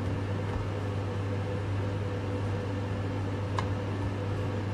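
Steady low electrical hum of a running kitchen appliance, with one faint click about three and a half seconds in.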